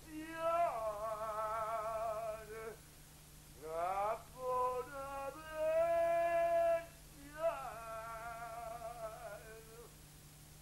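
A single melody line with a wide, wavering vibrato, in three phrases of two to three seconds each, with notes sliding up into one another.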